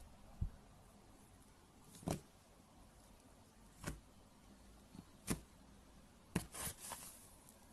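Scattered handling noises: a few short knocks and clicks, roughly one every one to two seconds, with a brief cluster of rustling clicks near the end.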